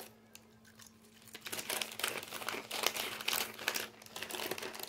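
A plastic bag of banana chips crinkling and rustling as it is handled, starting about a second in.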